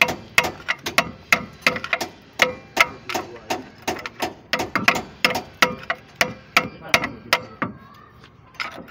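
A hammer striking a steel punch held against a truck's brake and hub parts, about three sharp metallic blows a second with a short ring, stopping near the end.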